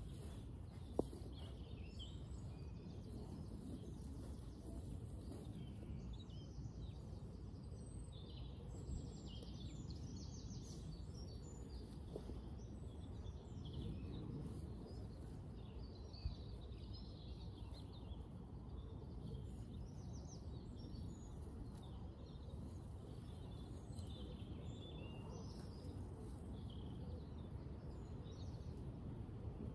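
Birds chirping and singing over a steady low outdoor rumble, with a sharp click about a second in and another about halfway through.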